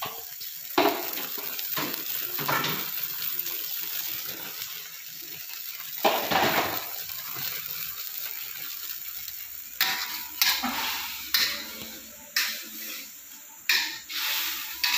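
Pork cooking in a little liquid in a steel wok, sizzling steadily, while a metal wok spatula scrapes and knocks against the pan, a few times early on and more often in the second half.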